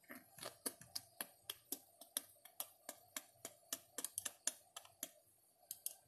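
Typing on a computer keyboard: a quick run of key clicks, about four a second, that stops about five seconds in, with a couple more keystrokes near the end.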